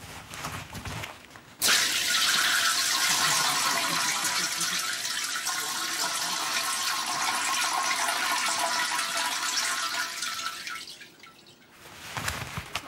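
A steady stream of liquid splashing, starting abruptly about a second and a half in and fading away near the end.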